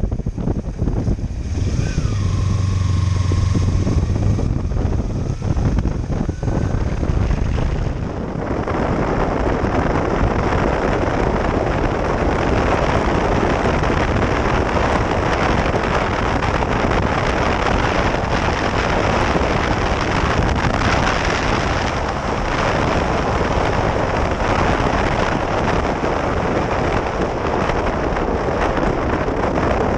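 Wind buffeting the chest-mounted camera's microphone as a Kawasaki Ninja 300 is ridden, with the motorcycle's parallel-twin engine running underneath. The engine is heard more plainly for the first few seconds; from about eight seconds in, a steady rush of wind noise covers most of it.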